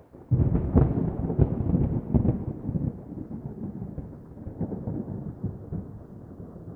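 Thunder: a sudden loud rumble with crackling breaks out just after the start and is loudest for about two seconds, then settles into a lower rumble that carries on.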